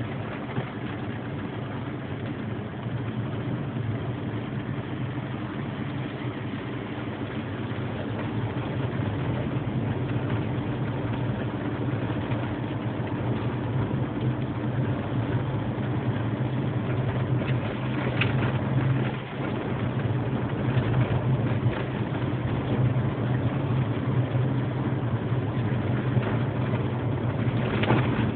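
Car engine running steadily under road noise, heard from inside the cabin, growing gradually louder, with a brief drop in level about nineteen seconds in.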